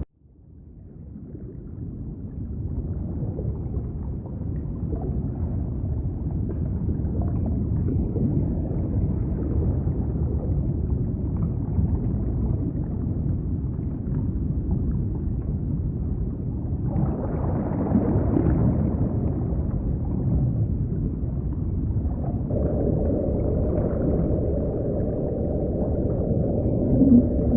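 Underwater soundscape: a low, steady rumble fades in after an abrupt cut, and a higher hissing layer joins about two-thirds of the way through. A sustained tone comes in later, and a few short gliding whale-like calls sound near the end.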